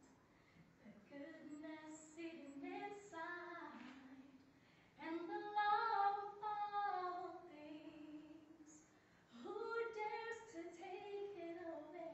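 A young woman singing solo and unaccompanied, holding notes and sliding between pitches in phrases, with short breaths between them.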